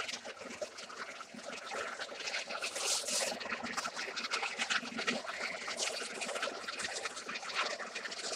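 Johnson horizontal band saw cutting through a steel plate: the blade running steadily in the cut, a continuous scratchy hiss dotted with many small irregular ticks.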